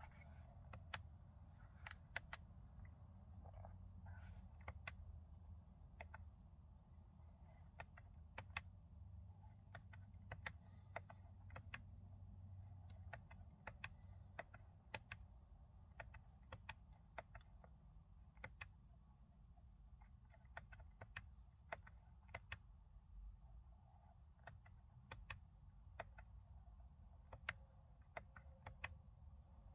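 Steering-wheel menu buttons of a Hyundai Kona being pressed again and again, small plastic clicks at an uneven pace of about one or two a second, over a faint low hum.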